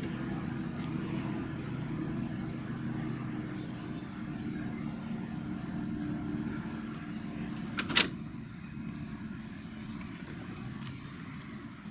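A steady low motor hum, like a running engine, with two sharp clicks close together about eight seconds in; the hum grows fainter after the clicks.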